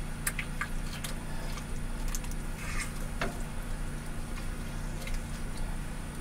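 Wooden spatula stirring diced vegetables in a nonstick skillet, making scattered light clicks and scrapes against the pan over a steady low hum.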